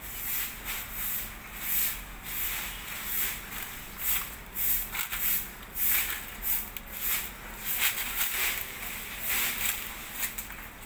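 Footsteps crunching and rustling through dry fallen leaves on a paved path, about two steps a second.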